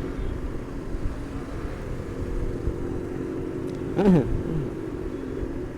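Motorcycle engine running steadily under way, with low road and wind rumble. About four seconds in, a brief louder sound falls in pitch.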